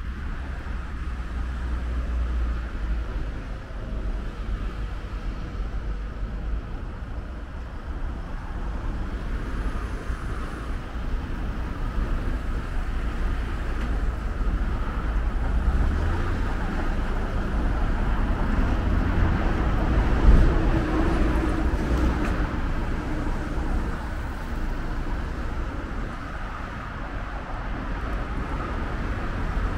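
Road traffic on a city street: a steady low rumble of passing cars, swelling as a vehicle passes close by around twenty seconds in.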